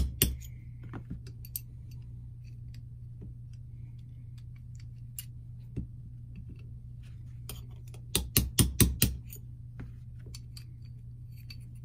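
Small 2-ounce ball-peen hammer tapping a steel pin punch to drive a cross pin out of a rifle action: one light tap right at the start, then a quick run of about six light taps about eight seconds in. Small metal clicks of loose action parts being handled come in between.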